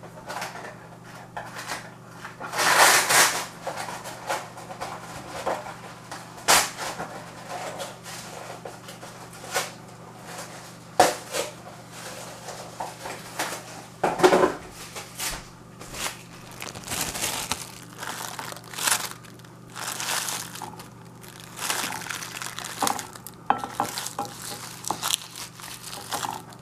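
Plastic cling wrap crinkling and rustling in irregular bursts as it is handled and stretched over a glass mug, with a few light knocks of glass on a plate. A steady low hum runs underneath.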